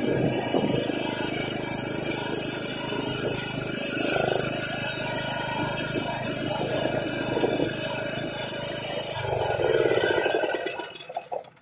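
Small 2 kW portable generator engine running steadily. About nine seconds in it is shut off and runs down to silence within about two seconds.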